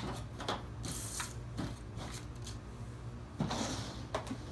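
A toolbox being opened and tools handled inside it: scattered clicks and clatters, with a couple of brief rustles.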